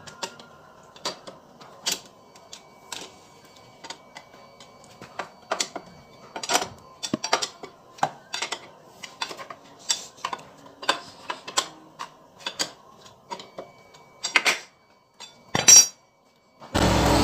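Irregular metallic clicks and clinks of a hand tool working the bolts of a Honda automatic scooter's CVT cover, a few a second with short pauses. Near the end they give way suddenly to the louder, steady noise of the scooter on the road.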